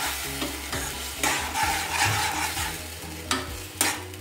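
A metal slotted spatula stirs and scrapes thick masala paste around a kadai while the masala sizzles as it fries. The spatula knocks and scrapes sharply against the pan a few times, once about a second in and twice near the end.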